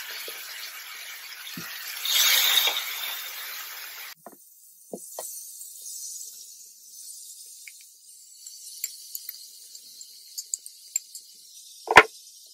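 Marinated chicken sizzling as it goes into hot oil in a stainless steel pan, swelling louder about two seconds in. About four seconds in the sound drops abruptly to a faint high hiss with a few light clicks, and there is a single sharp knock near the end.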